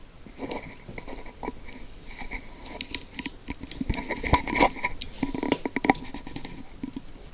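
Toilet tank lid and push-button parts being handled and set back in place: irregular clicks, knocks and scraping of hard ceramic and plastic. The sharpest knocks come a little past the middle.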